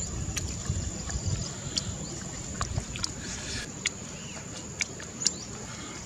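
A man chewing grilled duck close to the microphone: wet mouth clicks and smacks about once a second over a low rumble, with a steady high-pitched tone behind.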